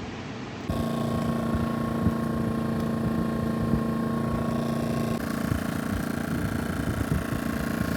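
A vehicle engine running at a steady speed, a constant hum that starts abruptly about a second in and shifts in tone about five seconds in.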